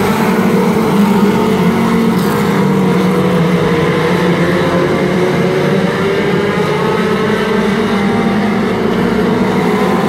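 A pack of four-cylinder mini stock race cars running laps on a dirt oval, several engines sounding together. Their pitches rise and fall a little as the cars go through the turns and down the straight.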